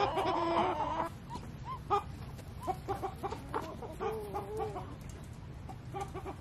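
A flock of backyard chickens clucking: many short calls, with a longer drawn-out call in the first second and another about four seconds in.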